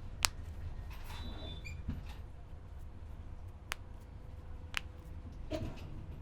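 Three sharp, short cracks of joints being popped during a barber's cracking massage; the first, about a quarter-second in, is the loudest, and the other two come near the middle, about a second apart.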